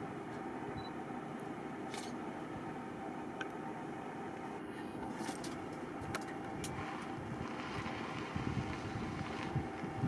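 Steady hum of an idling vehicle engine, with a few faint clicks and low wind rumble on the microphone building near the end.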